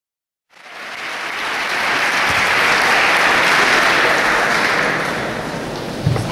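Large audience applauding. It starts suddenly, swells over the first few seconds and then slowly dies down. A single thump comes near the end.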